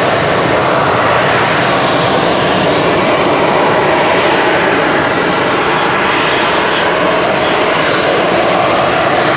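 AV-8B Harrier II's Rolls-Royce Pegasus turbofan running with a loud, steady jet noise that holds level without rising or falling.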